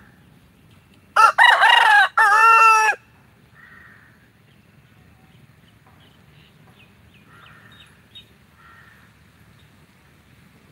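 A rooster crows once, loudly, for nearly two seconds about a second in. Faint bird calls and chirps follow.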